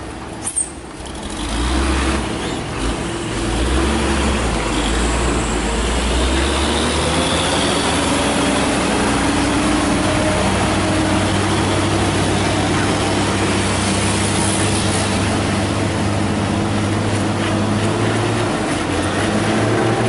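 Isuzu tractor-trailer's diesel engine straining uphill under a heavy load, its note climbing and then holding high and steady. It is another attempt at a climb that a water-slicked road surface keeps defeating. There is a short sharp hiss near the start.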